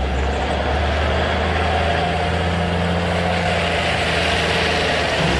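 Heavy diesel semi truck engine running steadily at low speed, a deep even drone as the truck rolls slowly up close.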